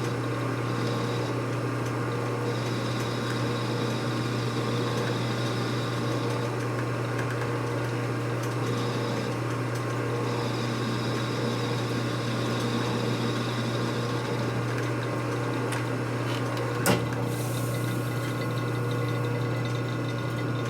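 Machine tool running steadily with a constant hum while it takes a light cut in metal, with one sharp click about seventeen seconds in.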